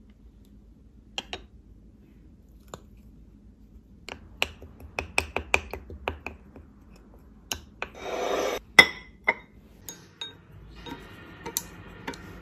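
Wooden spoon stirring sauce in a small glass bowl, with a run of light clicks and taps against the glass. About eight seconds in comes a brief rushing noise and then a sharp knock, the loudest sound; near the end there is a faint scraping as chopsticks stir the sauce.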